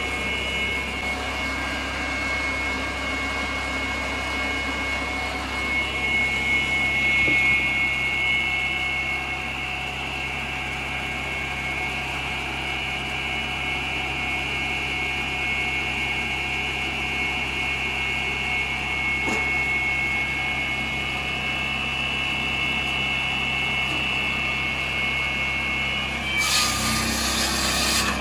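Hartnett 13 hp petrol log saw with a 700 mm circular blade running steadily, its engine humming under a high steady whine. About two seconds before the end the blade bites into a log, a harsh burst of cutting noise.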